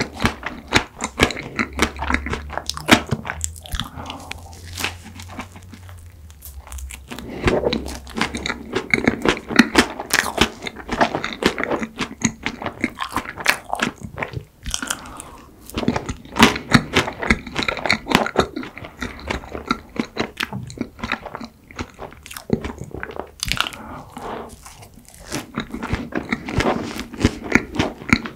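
Close-miked chewing and crunching: a crisp cookie-topped waffle and ice cream cake are bitten and chewed, with many irregular crackles and wet mouth sounds.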